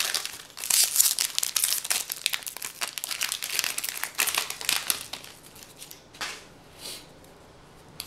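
Crinkling and tearing of a Magic: The Gathering booster pack's foil wrapper as it is ripped open by hand, dense and crackly for about five seconds. It then goes quieter, with two short soft swishes near the end as the cards are taken out.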